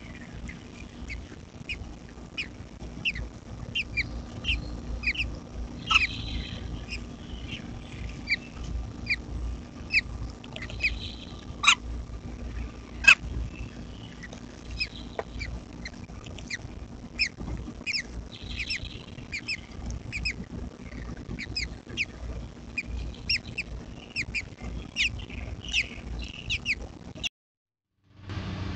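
American robin nestlings giving rapid, high, thin begging chirps, several a second, as the parent arrives at the nest with food. The chirps stop suddenly shortly before the end.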